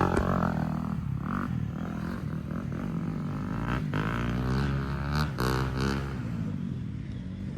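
Dirt bike engine revving, its pitch rising and falling several times with the throttle.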